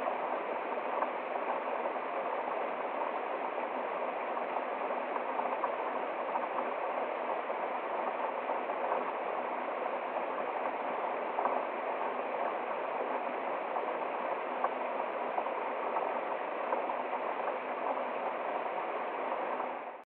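Small forest waterfall and cascade: a steady rush and splashing of water over rocks.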